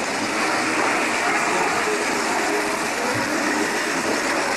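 Steady hubbub of a crowd, many people talking at once with no single voice standing out.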